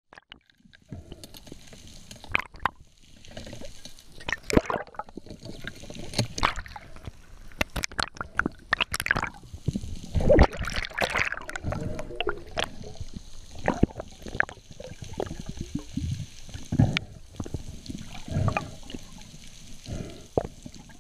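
Underwater sound picked up by the camera: water gurgling and moving, with many irregular knocks and clicks throughout.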